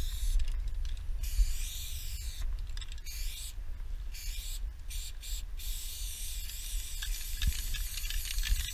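Aerosol spray-paint can hissing in bursts as lines are sprayed onto a truck's metal panel, breaking off for moments between strokes, over a low rumble.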